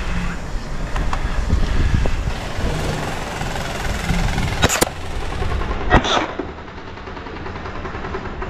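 Low rumbling noise on a handheld camera's microphone while walking across a dirt field. Two sharp snaps stand out, one a little under five seconds in and one about six seconds in.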